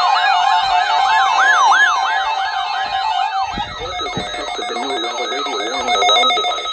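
Electronic siren-style alarm tones: several overlapping warbling sweeps rise and fall about three times a second. About three and a half seconds in, the high sweeps fade into a lower-pitched warble over steady tones.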